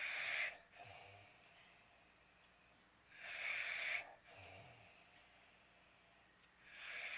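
A sleeping man's heavy, snoring breaths: a breathy hiss about every three and a half seconds, each followed by a softer breath.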